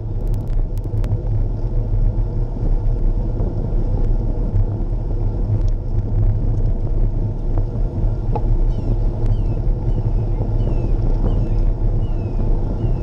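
Wind buffeting the microphone of a bicycle-mounted camera as the bike rides along a road: a loud, steady low rumble. A few sharp clicks come in the first second, and from about two-thirds in a short falling chirp repeats roughly every two-thirds of a second.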